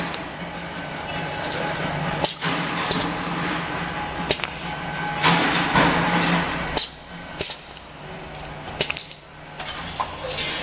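Paste filling and sealing machine running: a steady low hum under sharp clacks and knocks from its moving parts at irregular intervals, with a few short rushes of hiss.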